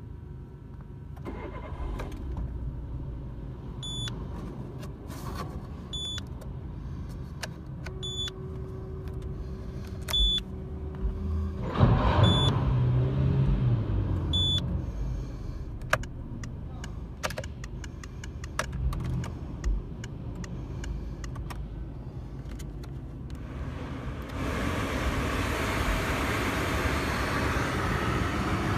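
Peugeot 207's 1.4-litre 16-valve four-cylinder petrol engine (KFU) starting and running, with a loud rev about twelve seconds in. Through the first half a dashboard warning chime beeps about every two seconds, and a steady hiss comes up near the end.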